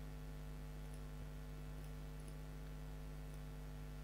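Quiet room tone with a steady low electrical hum, and a few faint computer mouse clicks as a component is placed.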